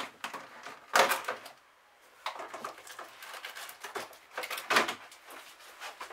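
Several short bursts of rustling and clatter from someone moving about and fetching things off camera, the loudest about a second in.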